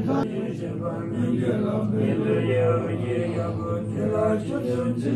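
Tibetan Buddhist monks chanting prayers together: several low male voices held on a deep, steady pitch.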